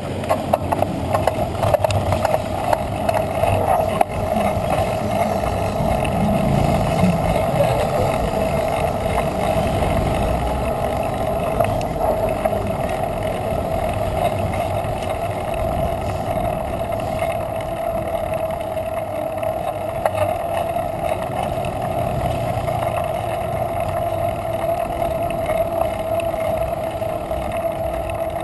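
Wind and road noise picked up by an action camera on a moving bicycle: a steady rushing with a constant mid-pitched hum under it.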